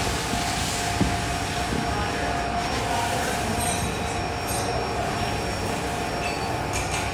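Steady, loud roar of foundry machinery with a constant mid-pitched hum running through it; a single knock about a second in.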